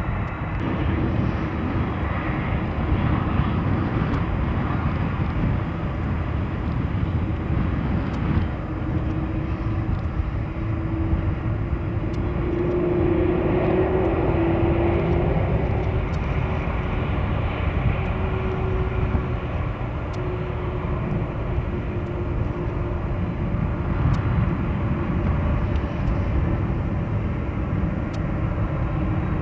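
Boeing 747-400's four jet engines running at taxi power: a steady rumble with a low hum on top, swelling as the jumbo jet passes closest, about halfway through, then easing off as it turns away.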